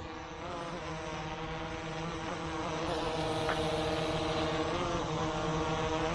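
Autel EVO II drone with low-noise propellers flying low: a steady hum of several propeller tones that shifts up and down in pitch a few times as it moves, growing louder as it goes.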